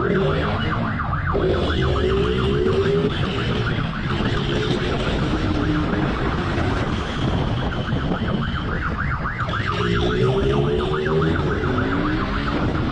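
A police motorcycle siren warbles rapidly and continuously over the motorcycle's engine. The engine rises in pitch twice as it accelerates.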